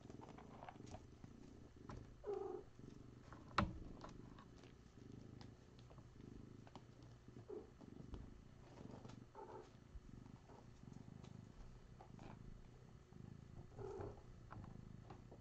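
Cat purring steadily, with a few brief higher-pitched sounds over it and one sharp click about three and a half seconds in.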